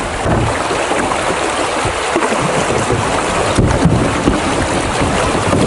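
Shallow river water rushing over a riffle around a canoe, a steady wash, with wind rumbling on the microphone.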